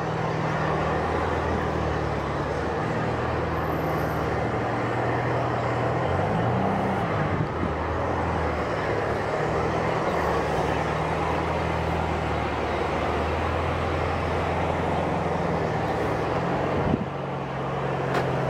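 Steady drone of potash mill machinery: a constant hiss over a few low hums that shift slightly, with a brief dip near the end.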